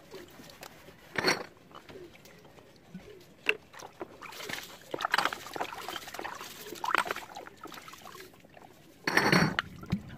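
Glass bottle being scrubbed with steel wool and water: irregular scraping and rubbing, with two louder bursts, one about a second in and one near the end.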